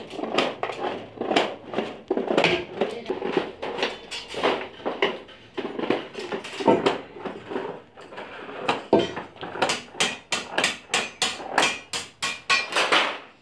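Hand tin snips cutting through a galvanized steel sheet: a continuous run of sharp metallic snips that quickens to about three a second in the last few seconds.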